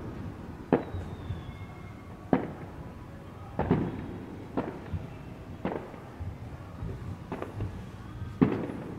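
Fireworks bursting: about eight sharp bangs at irregular intervals, with a low rumble between them.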